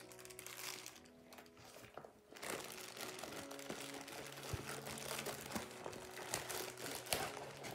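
Thin plastic packaging crinkling and rustling in the hands as it is pulled out of a fabric storage bag, with scattered small clicks. Soft background music plays underneath.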